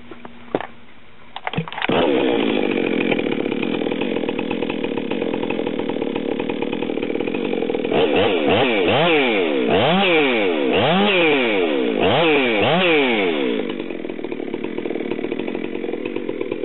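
Ported Stihl MS462 72 cc two-stroke chainsaw starting about two seconds in and running while it warms up after an M-Tronic controller reset. Midway it revs up and down about once a second in half a dozen throttle blips, then drops back to a steady idle.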